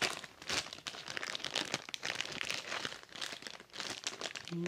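A clear plastic bag crinkling and rustling as it is handled and turned over in the hands, a dense run of irregular crackles. A brief low hum comes in near the end.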